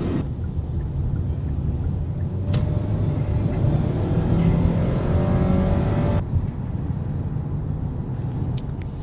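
Steady low rumble of a road vehicle running, with a faint rising engine whine in the middle and a sharp click about two and a half seconds in.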